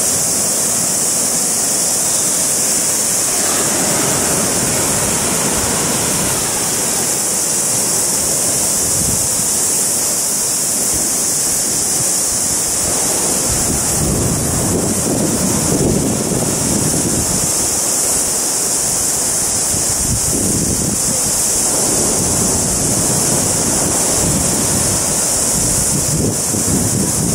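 Ocean surf washing onto a sandy beach as a steady hiss, with wind buffeting the microphone in low rumbling gusts several times.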